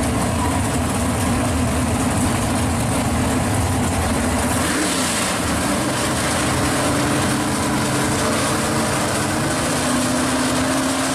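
Drag cars' engines idling loudly, the closest a 1965 Pontiac GTO drag car, with a brief change in engine pitch a little before halfway.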